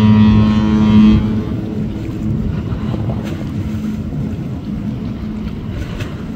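Cruise ship's horn sounding a long, steady blast that cuts off about a second in, followed by wind buffeting the microphone over a low rumble.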